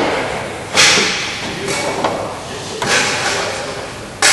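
Three sharp metallic knocks from hand work on an aircraft's sheet-metal skin panel, about a second in, near three seconds and near the end. Each one trails off in the echo of a large hangar.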